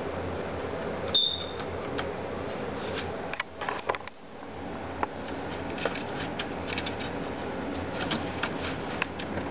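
Scattered small clicks and taps of hands working on computer hardware, with a brief high squeak about a second in and a cluster of clicks around three to four seconds in, over a steady background hiss.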